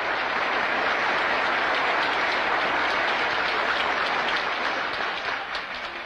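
Crowd applauding steadily, dying down near the end.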